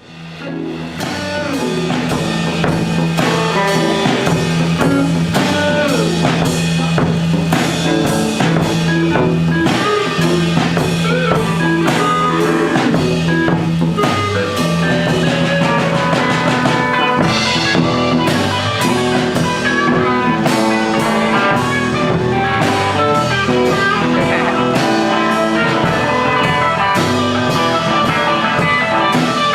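Instrumental rock jam with guitars, bass and a drum kit playing, rising in after a brief dip at the start.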